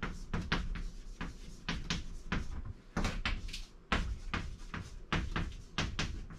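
A pen or marker tapping and knocking against the writing surface while writing, an irregular run of sharp taps about three to four a second.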